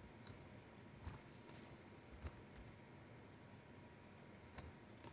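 Faint, scattered keystrokes on a computer keyboard: about five separate clicks spread over a few seconds, against near-silent room tone.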